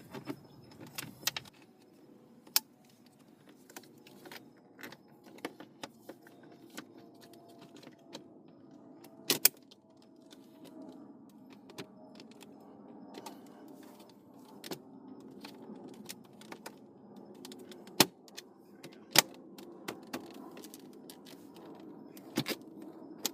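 Scattered clicks and rattles of a car's plastic shifter trim panel being handled and fitted into the centre console, with a few sharper snaps as it is pressed into place and its hazard-switch plug is connected.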